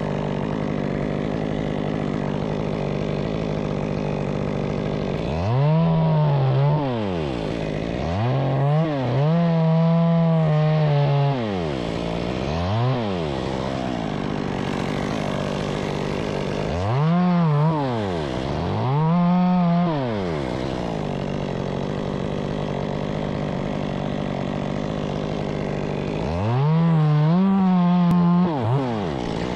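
Two-stroke chainsaw idling, then revved to full throttle about seven times, held at top speed for a second or two at a stretch before dropping back to idle.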